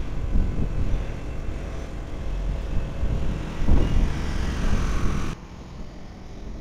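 Hi-rail truck running along the rails close by: a rumbling engine and wheel noise that peaks about four seconds in as the truck passes nearest. Just after five seconds the sound cuts off abruptly to a quieter, steady rumble.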